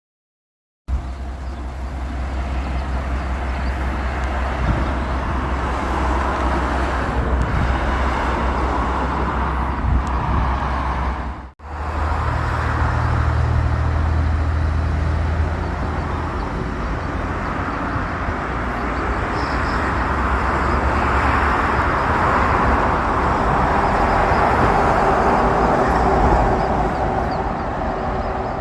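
JR Shikoku 1500 series diesel railcar running: a steady low engine hum under a broad rushing noise. The noise swells in the second half, and the sound cuts out briefly just under halfway through.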